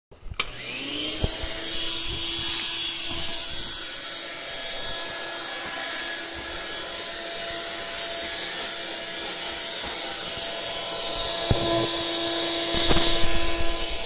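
Vacuum cleaner switched on with a click, its motor whine rising and settling to a steady pitch within about a second, then running steadily. Near the end come a few knocks and a low rumble as the floor head is pushed across tatami mats.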